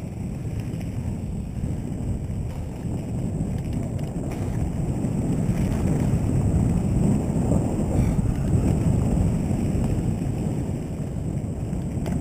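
Wind buffeting the microphone of a bike-mounted camera, with the mountain bike's tyres rumbling over a dirt trail at speed. A steady low rumble that grows louder about halfway through.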